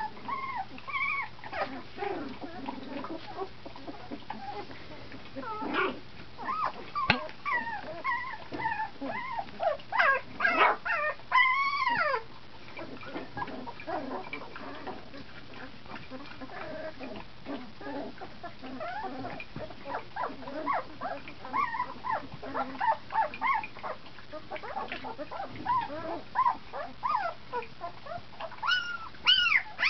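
A litter of young puppies making many short, high, rising-and-falling calls. The calls come thickest about ten seconds in and again near the end.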